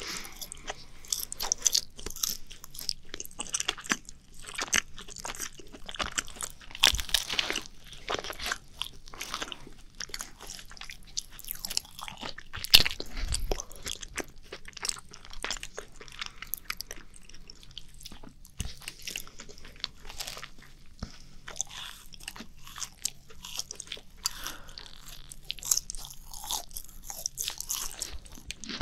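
Macarons being bitten and chewed close to a binaural microphone: the crisp shells crunch in irregular bites and chews, with one sharper crunch a little before halfway.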